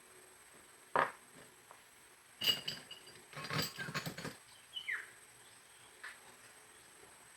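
Handling a drill and its loose, hot drill bit: a sharp metal click about a second in, then a quick cluster of clicks and clinks with a slight ring, and a short falling squeak near the five-second mark.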